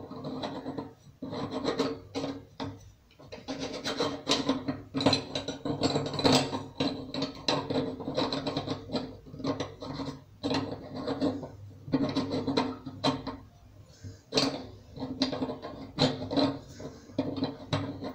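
Kitchen sink drain valve being screwed tight into a stainless steel sink: repeated short, irregular scraping and rubbing strokes of the threaded fitting turning against the sink.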